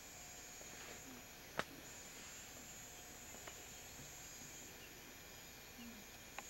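Faint, steady high-pitched chirring of night insects. A single sharp click about a second and a half in, and a softer tick near the end.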